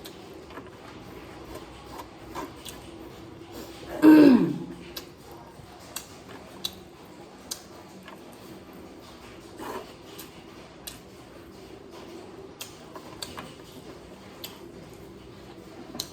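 Close-up eating sounds: scattered sharp mouth clicks and smacks of chewing over a faint steady hum. About four seconds in there is one loud, short throat sound that falls in pitch.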